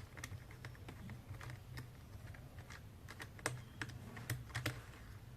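Faint, irregular small clicks and taps of a screwdriver and plastic parts as screws are taken out of a Bluetooth speaker's plastic case, over a low steady hum.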